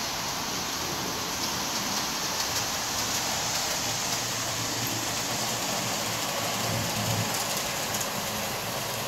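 HO scale model trains running with no sound effects, so only their mechanical running noise is heard: a steady rushing whir of wheels and motors on the track, with a slightly louder low rumble about seven seconds in.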